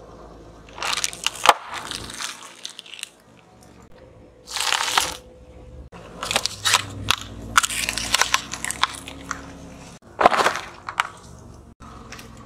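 A car tyre rolling over and crushing a series of small objects, among them a crisp packet, one after another. Crunching and crackling come in several separate bursts, with sharp cracks and pops among them.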